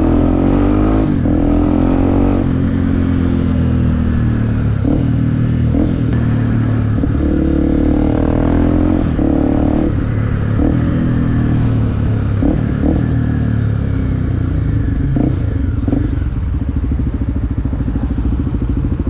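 Motorcycle engine heard from an onboard camera, rising in pitch as it accelerates and dropping at each gear change, repeated several times, over a steady rush of wind. Near the end it settles into a steadier, lower running note.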